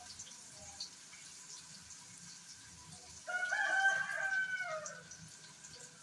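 A rooster crowing once, about three seconds in: a single call of under two seconds that drops in pitch at its end.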